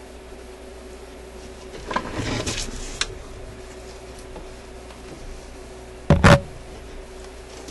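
A record changer's wooden mounting board being handled in its suitcase cabinet. About two seconds in there is a second of scraping and rattling that ends in a click, and about six seconds in the board gives a short, loud knock.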